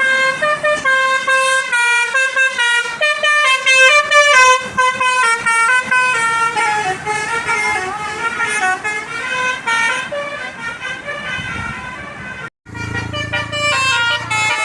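Tour bus telolet horn playing a quick melody of short, stepped notes. It breaks off for a moment near the end, then starts up again over the low rumble of an engine.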